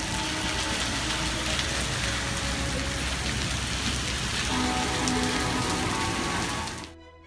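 Rain falling steadily on a wet street, a dense even hiss that cuts off abruptly near the end, with soft music underneath.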